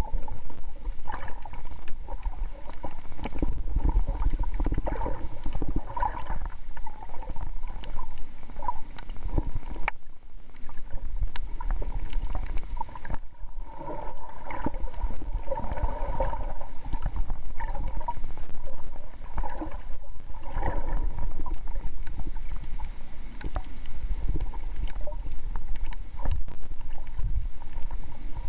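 Muffled underwater ambience recorded with the camera submerged: a steady low rumble of moving water with irregular gurgles and a few faint clicks.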